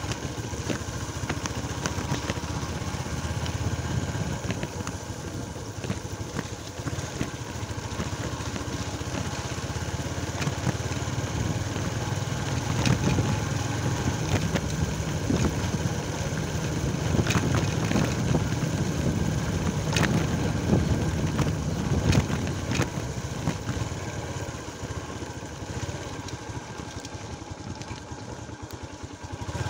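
Motorcycle engine running at low speed while riding over a rough dirt track, with scattered knocks from the bumps.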